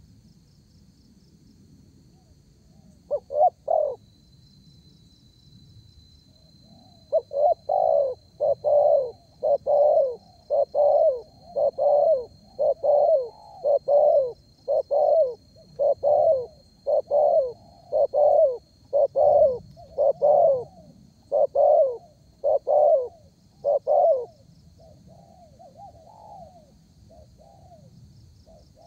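Spotted dove (derkuku) cooing: a short burst of three coos, then a long steady series of about eighteen coos at roughly one a second, turning to softer notes near the end. A faint steady high tone runs behind.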